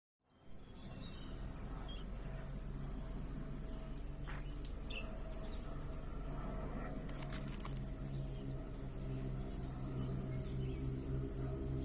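Small bird chirping: short, high chirps repeating every half second to a second, over a steady low hum.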